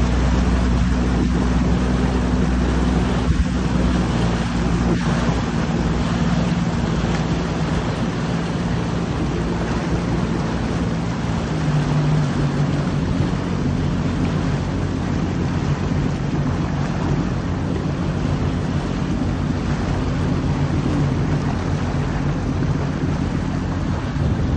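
Jet ski engine running at speed, with water rushing past the hull and wind on the microphone; the engine note drops a little about halfway through.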